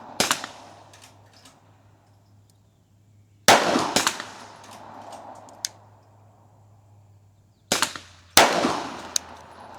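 Glock 34 pistol firing 147-grain 9mm rounds in slow fire, a sharp shot every few seconds, each trailing off in a short echo.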